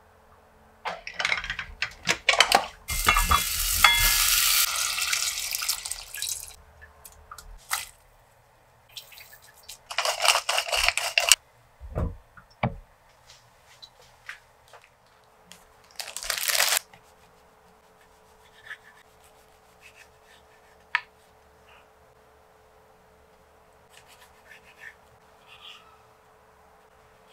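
A kitchen tap runs in a few bursts while cherry tomatoes are rinsed, the longest lasting several seconds. There are a couple of low thuds about twelve seconds in, then quiet stretches with small kitchen handling ticks.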